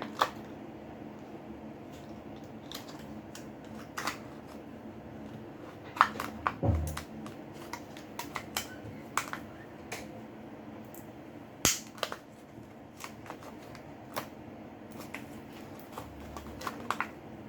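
Scattered small clicks and taps as a card and tools work under the display of a Samsung Galaxy J6 to pry the screen off, with the sharpest clicks about six seconds in and near the middle.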